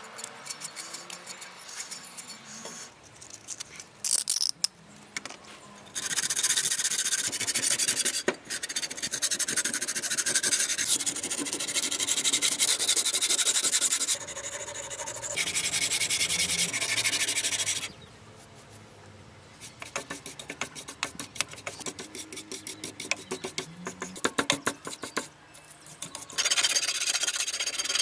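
Hand scrubbing and sanding of an old masonry trowel's crusted steel blade with a wire brush and abrasive. The rapid back-and-forth scraping strokes come in long runs, with quieter pauses between.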